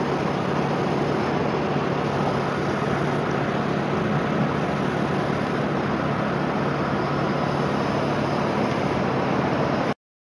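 Steady rushing noise of road traffic and wind under a busy highway bridge, cutting off abruptly near the end.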